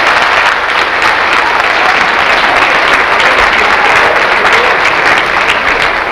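Congregation applauding, dense clapping that begins to fade near the end.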